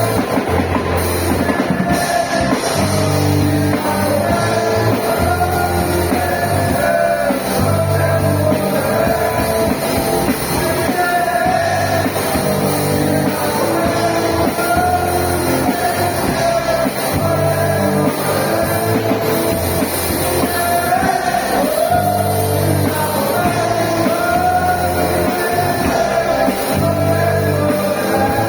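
Men's group singing a church song in rehearsal, backed by a band with drums and guitar.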